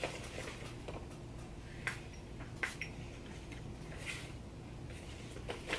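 Faint clicks and taps of a glass perfume bottle and its cap being handled, with a brief soft hiss about four seconds in.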